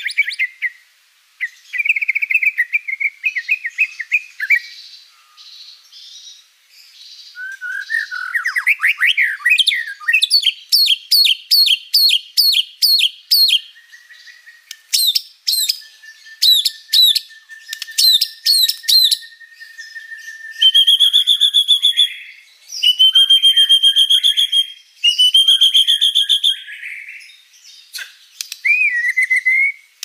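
A white-rumped shama (murai batu) in full song, a long varied run of phrases: quick trills, a rising trill, fast strings of repeated notes, sharp down-sweeping notes over a long steady whistle, then harsh buzzy phrases near the end. It is the kind of loud, non-stop singing with many borrowed phrases that keepers call gacor with lots of isian.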